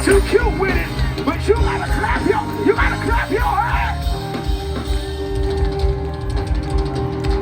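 Live gospel band music: quick melodic runs over a steady beat, then a long held note from about four seconds in.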